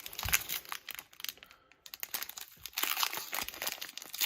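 Trading cards and their plastic wrapping being handled, crinkling in irregular rustling bursts, with a brief pause about one and a half seconds in.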